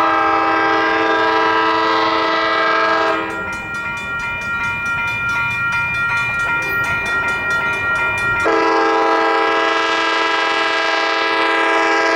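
ACE commuter train's horn sounding as the train approaches: a multi-note chord in two long blasts, the first about three seconds long and the second starting about eight and a half seconds in, with the horn continuing more softly between them.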